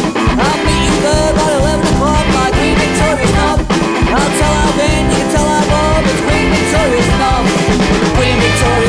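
Punk rock song playing loudly: a full band with drums and bass, and a melodic line that bends up and down in pitch over them.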